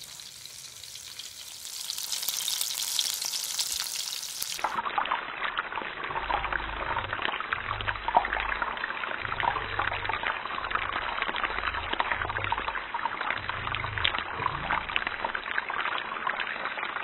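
Cracker-crumb-coated bluegill fillets frying, a steady sizzle full of small crackles that grows louder over the first couple of seconds.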